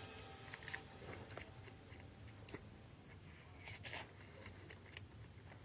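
Faint eating sounds: a metal spoon clicking against a ceramic plate and quiet chewing of cooked eel. Behind them a faint high chirp repeats about three times a second.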